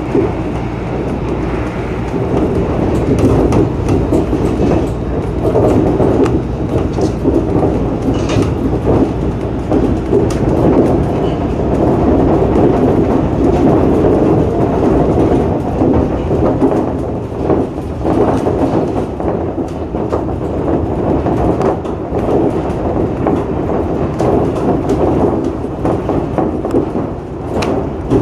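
Shonan Monorail 5000 series suspended monorail train running at speed, heard from inside the front cab: a steady running noise with occasional short knocks and rattles.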